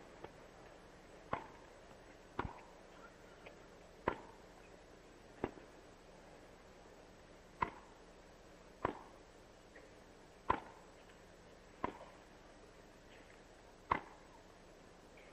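Tennis rally: racket strings hitting the ball with sharp pocks, about nine strokes at one- to two-second intervals, over a faint steady hiss.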